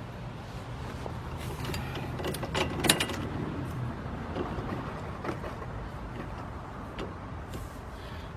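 Clinks and knocks of metal parts and tools being handled while working on a car's front axle and hub, the loudest about three seconds in. A low steady hum runs underneath and stops about four seconds in.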